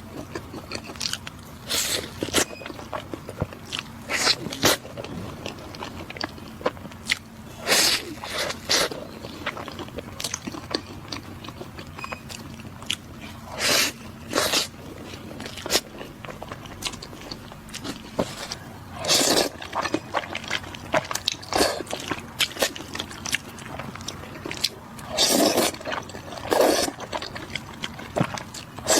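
Close-miked eating: irregular short crunchy bites and chewing clicks, with a louder wet bite or mouth sound about every six seconds.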